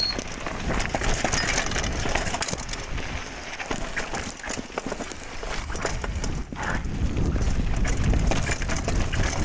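Mountain bike rolling down a dirt singletrack: tyres on the dirt and the bike rattling and clicking over bumps, with one sharp knock about two-thirds of the way through. Wind rumbles on the phone's microphone near the end.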